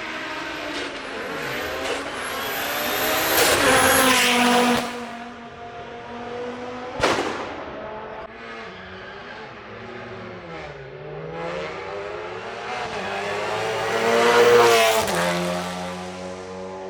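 Hillclimb race car engines revving hard and pulling away at the start, pitch rising and falling as they rev and shift, loudest about four seconds in and again near fourteen seconds. A single sharp crack comes about seven seconds in.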